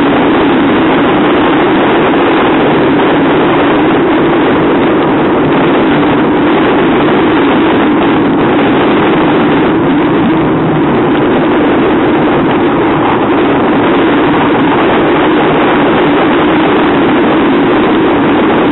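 RNLI Atlantic 85 inshore lifeboat's twin outboard engines running hard at speed in rough sea, a loud steady drone mixed with strong wind buffeting the microphone.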